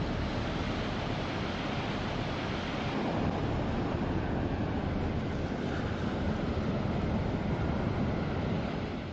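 Ocean surf breaking and washing up a sandy beach, a steady rush, with wind on the microphone.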